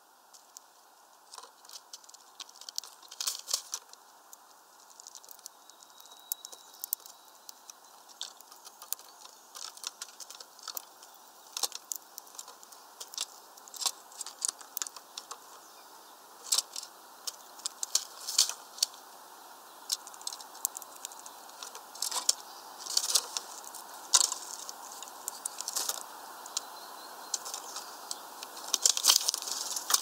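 Small birds feeding at a seed feeder: irregular taps and clicks of beaks pecking and cracking sunflower seeds and feet on the tray, growing busier in the second half. A burst of wing flapping near the end.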